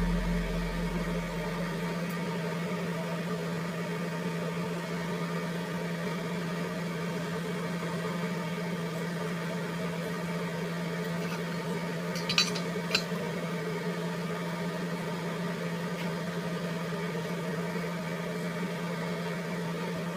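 Steady low machine hum over a faint hiss, with two short clinks a little past halfway.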